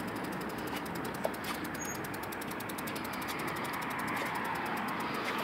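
Bicycle freewheel hub ticking rapidly and evenly while coasting, over a steady hiss of street noise.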